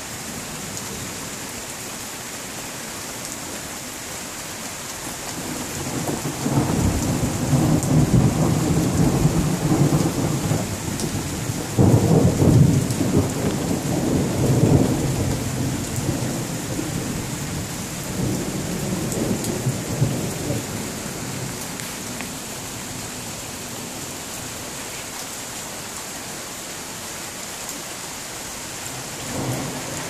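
Steady rain with rolling thunder. A rumble builds about six seconds in, a sharper, louder peal breaks near the middle, and the rumbling dies away after about twenty seconds while the rain keeps falling.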